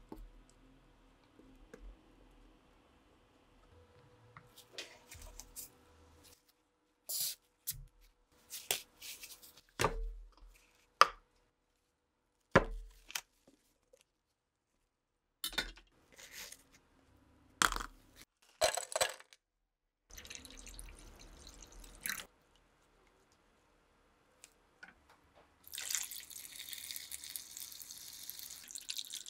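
Sharp clicks and knocks of tools and plastic containers being handled. About twenty-six seconds in, liquid is poured in a steady stream into a plastic gutter trough over metal rifle parts.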